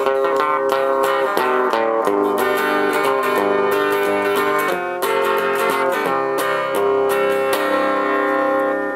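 Electric guitar played through an MTB-1E valve amplifier kit built on 6EB8 tubes, single notes and chords sounding continuously.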